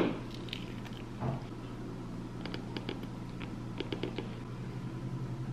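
Faint small clicks and rustling as a sticker name label is peeled from its sheet and pressed onto a plastic sippy cup, over a low steady hum.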